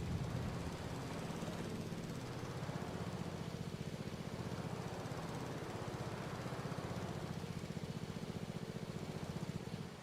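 Husqvarna riding mower's engine running steadily with an even pulsing beat, then shut off just before the end.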